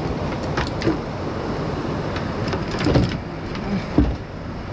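Steady wash of surf, with a few knocks and bumps as the camera is handled and set down on the fiberglass boat's bench. The loudest knock comes about four seconds in.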